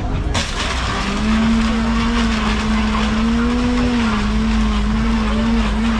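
Countertop blender switching on about a third of a second in and running at high speed while blending a fruit smoothie. The motor settles into a steady whine within a second, and its pitch wavers slightly as the load shifts, over the noisy churn of the contents.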